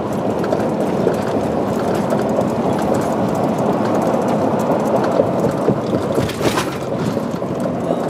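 Steady driving noise heard from inside a vehicle's cabin: tyres on a concrete causeway, engine and wind mixed in an even rumble.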